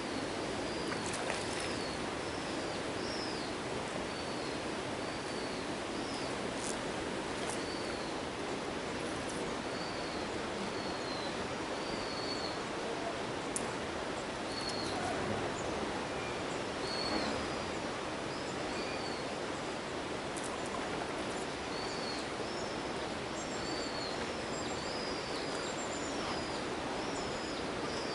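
A small bird calling over and over, short high arched chirps about once a second, over a steady outdoor hiss, with a few faint clicks.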